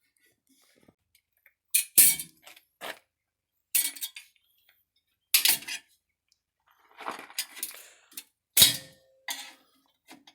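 Metal tools and parts clinking and clanking in a series of sharp knocks. Near the end, one struck metal piece rings on with a clear tone like a dinner bell.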